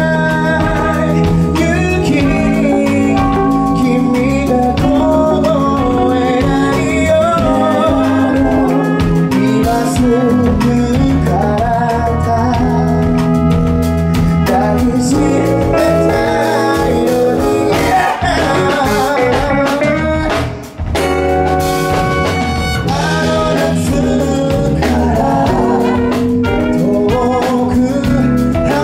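A live band playing a song: a lead singer sings over drum kit and electric guitar, with backing singers. The music drops out very briefly about three-quarters of the way through, then comes straight back in.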